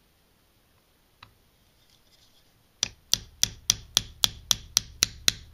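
Hammer tapping a roll pin starter punch, driving a roll pin into an AR-15 gas block to pin the gas tube. One light click about a second in, then sharp, even metal taps about four a second, starting about halfway through; the first tap is the loudest.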